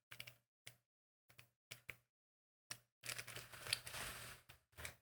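Faint handling noises of unboxing: a scatter of light clicks and taps, then about a second and a half of plastic packaging rustling and crinkling, and one more click near the end.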